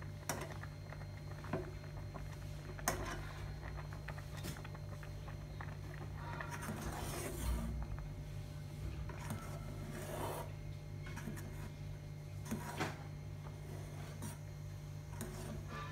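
Metal ladle stirring thick rice porridge in an aluminium pot, scraping against the pot with irregular rasping strokes every second or two, over a steady low hum.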